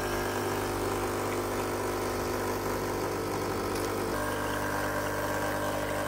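Nescafé Dolce Gusto capsule machine's pump running with a steady hum as it pushes water through a pineapple juice capsule into a glass. The tone shifts slightly about four seconds in.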